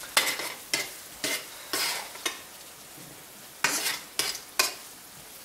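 Diced potatoes shallow-frying in oil in a metal pan, a steady sizzle. Metal tongs turn them, each turn giving a sharp burst of sizzle and a click of metal: five quick ones in the first half, then four more around four seconds in.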